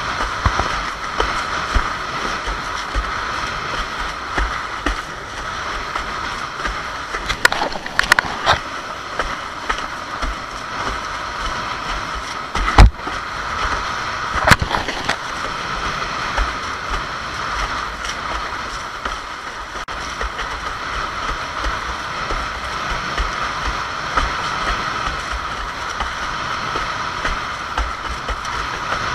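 Wind buffeting the camera on a windsurf rig, over water rushing and sloshing past a Fanatic Bee board sailing fast through chop. A few sharp knocks and slaps come as the board bounces over the chop, the loudest about halfway through.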